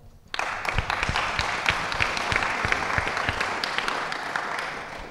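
Audience applauding. The clapping starts about a third of a second in and fades away near the end.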